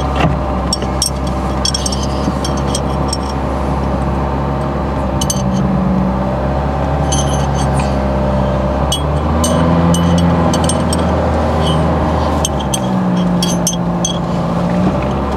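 Old Ford saloon's engine running as the car reverses slowly across grass. The engine note shifts up and down a few times in the second half, with light clicks and ticks over it.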